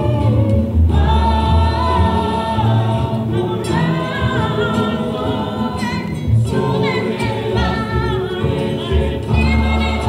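Rondalla performing: many voices singing together in harmony over strummed guitars and mandolins. The singing comes in phrases of about three seconds, with short breaks between them.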